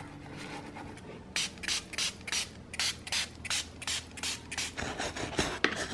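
Quick, regular hissing strokes, about three a second, from cleaning a wet vinyl highchair seat with soap and water, with two sharper strokes near the end.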